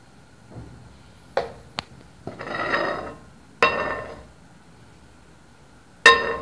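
Ladle clinking and scraping against a dish: a few light clicks, a scrape of about a second, a knock, then a loud ringing clink near the end.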